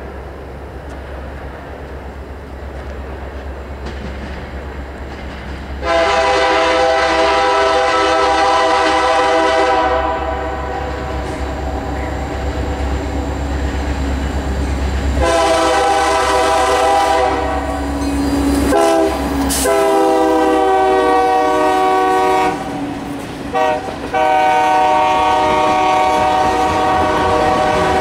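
Union Pacific SD70M diesel locomotive approaching, first with a low engine rumble. Then it sounds its air horn in a series of long blasts, with a brief blast near the end before the last long one.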